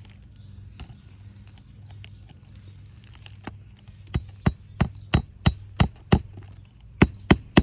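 Hammer driving a roofing nail back through an asphalt shingle: a few light taps, then a run of about seven sharp strikes at roughly three a second, and after a short pause three more near the end.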